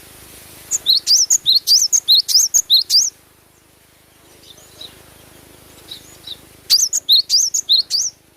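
Cinereous tit (gelatik batu) singing: two bouts of fast, repeated high whistled notes, each rising then falling, about six a second. The first bout runs for about two seconds, and the second starts near the end after a gap with a few faint calls.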